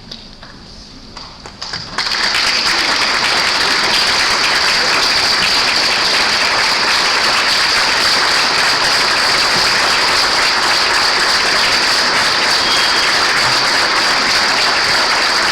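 Congregation applauding, breaking out suddenly about two seconds in and carrying on steadily.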